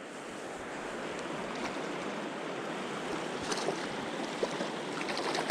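River running high and fast, rushing water as a steady even hiss, with a few faint clicks in the second half.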